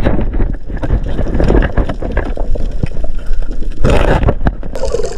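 Water noise around a diver's camera in the sea: a steady low rumble with constant crackling, and a brief louder rush about four seconds in.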